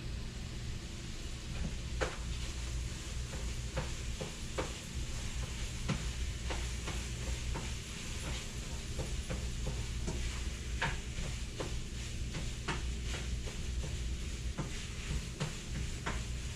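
Sausage sizzling in a frying pan, with many short clicks and scrapes of a utensil stirring it, over a steady low hum.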